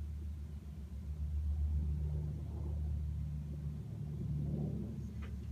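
Low, steady engine drone of a distant firefighting air tanker making a water drop, swelling a little about two seconds in.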